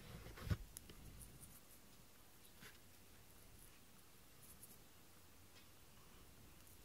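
Near-silent room with faint scratchy rustles and light ticks from a feathered cat toy being waved, after one soft bump about half a second in.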